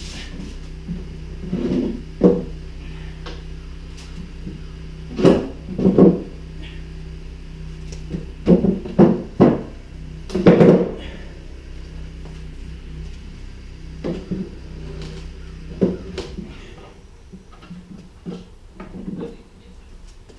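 Heavy manual transmission case, a Tremec T56 Magnum XL, clunking and knocking against a wooden bench as it is handled and stood on end. The knocks come unevenly, some in quick runs of two or three, over a steady low hum that drops away near the end.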